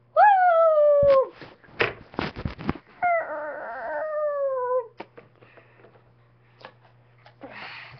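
Two long howls, each sliding down in pitch, the second wavering. Between them comes a quick run of knocks and clicks, with a few more clicks near the end.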